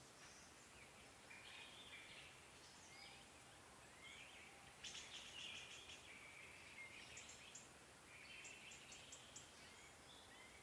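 Songbirds singing and calling in a forest: faint short chirps and whistled phrases, with a quick rattling trill about five seconds in and another near the end, over a steady hiss.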